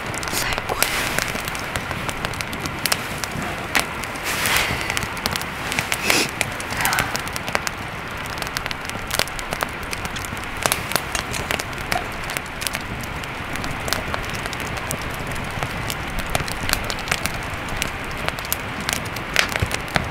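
Wood campfire burning, crackling and snapping with frequent sharp, irregular pops over a steady hiss.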